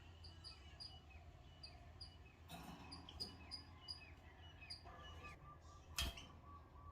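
Canaries calling faintly: a regular run of short, high chirps, about three a second, followed by a steady pulsed note, with one sharp click about six seconds in.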